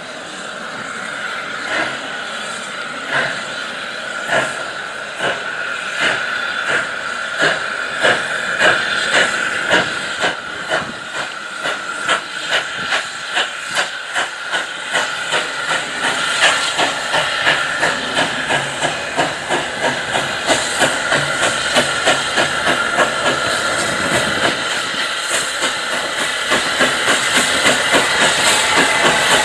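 SE&CR O1 class 0-6-0 steam locomotive No. 65 pulling away with its train: exhaust beats start slow and quicken steadily as it gathers speed, over a steady hiss of steam.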